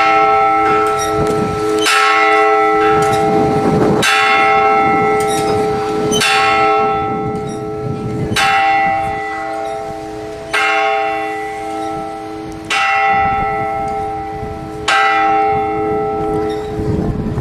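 Church bell tolled slowly and evenly, about one stroke every two seconds, each stroke ringing on with the same steady pitch until the next.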